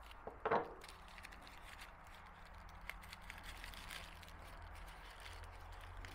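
Faint crinkling and crackling of plastic bubble wrap being pulled open by hand, with a brief knock about half a second in.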